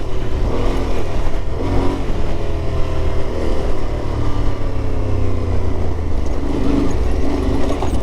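Yamaha Ténéré 700's parallel-twin engine running under way off-road, its note rising and falling as the rider works the throttle through the gears, over a low rumble of wind and ground noise.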